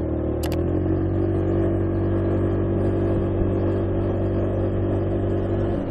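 Motorcycle engine running at a steady pitch. Its note rises slightly about a second in, then holds.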